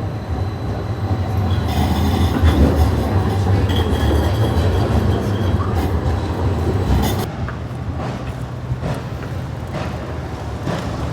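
A train running past: a heavy low rumble that builds over the first couple of seconds and eases off about seven seconds in, with a thin high whine partway through.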